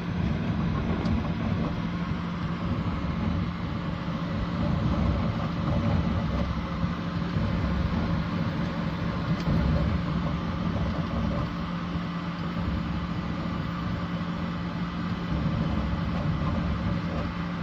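Bambu Lab P1S 3D printer running: a steady machine hum at one pitch with a fast, dense low rattle underneath.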